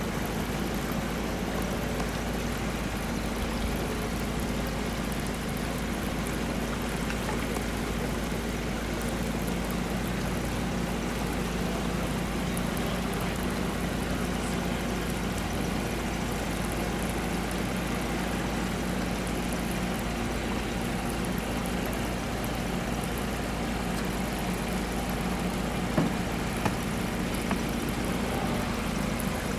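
Small boat's outboard motor running steadily at low speed, with wind rumble on the microphone. A few sharp knocks near the end.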